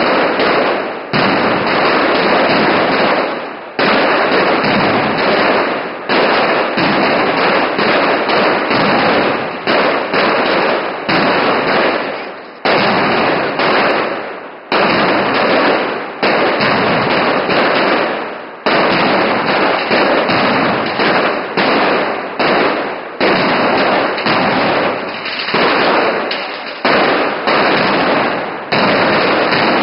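Mascletà: a dense, continuous ground-level barrage of firecrackers going off in rapid succession, the bangs merging into a loud, unbroken din that surges and dips every second or two.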